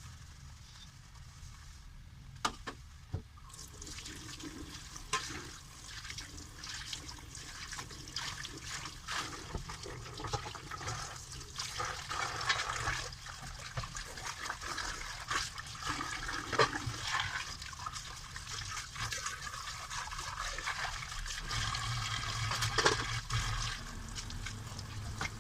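Water running from a tap into a sink during dishwashing, starting a few seconds in, with small clinks and knocks of dishes throughout.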